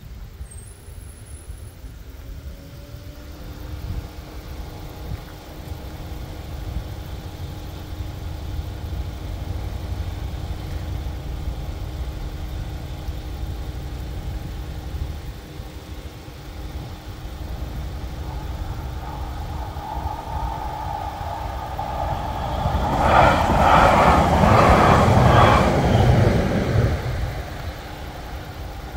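Level crossing bells ringing behind a Roslagsbanan electric commuter train approaching, with a rising motor whine in the first few seconds. About 23 s in the train passes over the crossing, loud wheel-on-rail noise for about four seconds, then fades away as the bells go on.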